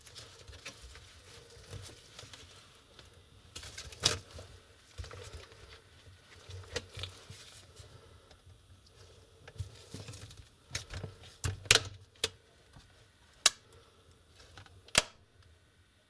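Plastic clips of a Lenovo IdeaPad laptop's screen bezel clicking and snapping as the frame is worked loose by hand, with soft rubbing of gloved fingers on the plastic. The clicks come irregularly, the sharpest about four seconds in and several more in the last five seconds.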